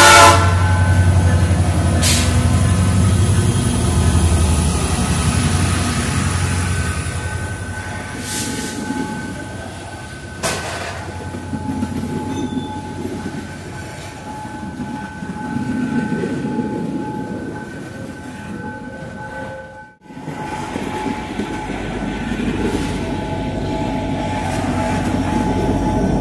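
Freight train passing close by: a diesel-electric locomotive's low engine rumble fades over the first few seconds, then the wagons roll past with steady wheel squeal and a few sharp clanks over the rail joints. About 20 s in the sound cuts off abruptly and another diesel locomotive is heard rumbling past.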